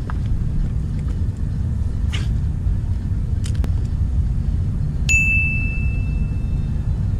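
Low, steady wind rumble on the microphone, with a few faint clicks. About five seconds in, a single bright ding sounds and rings on for about two seconds.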